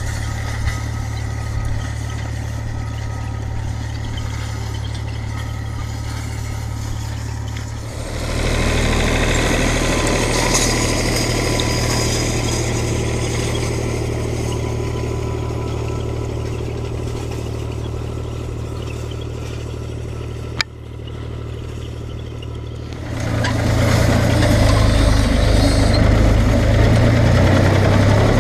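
Fiat 540 Special tractor's four-cylinder diesel engine running steadily while pulling a rotary hay rake. It grows louder about eight seconds in, drops back with a sharp click a little past the two-thirds mark, then swells louder again near the end.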